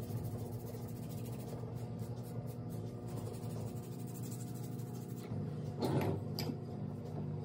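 A foot file rasping in quick strokes against dry skin on the foot, with a couple of louder scrapes near the end, over a steady low hum.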